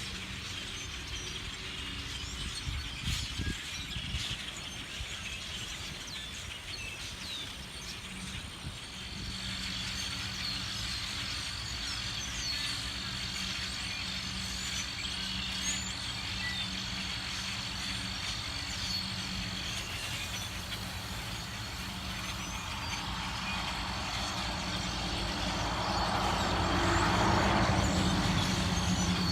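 A large flock of birds chattering and calling as they settle into a roost, over the steady hum of an idling vehicle engine. Near the end a vehicle passes and briefly drowns them out.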